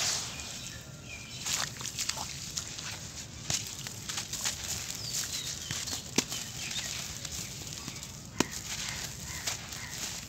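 Hands squeezing and crumbling clumps of damp sand-cement mix, with gritty crunching and grains and lumps pattering down into a watery puddle. Two sharper clicks stand out, about six and eight and a half seconds in.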